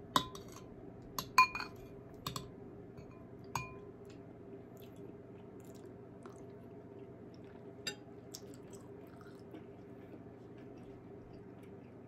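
Metal spoon clinking against a ceramic soup bowl several times in the first four seconds, each strike ringing briefly. Then faint chewing.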